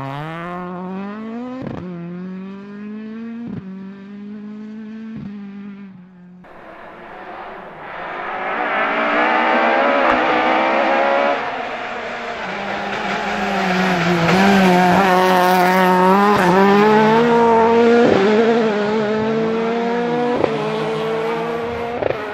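Ford Escort MK II rally car engine revving hard through the gears, its pitch climbing and then dropping at each upshift about every second and a half. It gets louder as the car approaches, over several short passes cut together.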